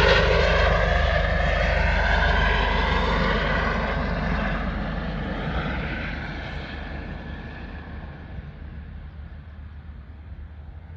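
Airbus H145 twin-turbine helicopter flying away: its rotor beat and turbine whine fade steadily as it recedes, with the whine dropping slightly in pitch over the first few seconds.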